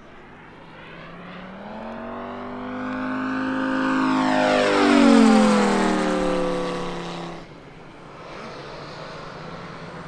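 Moki 250 five-cylinder radial engine of a scale RC La-7 flying past: it grows louder, and its pitch falls as it passes about five seconds in. About seven and a half seconds in the sound drops suddenly to a fainter, steady engine hum.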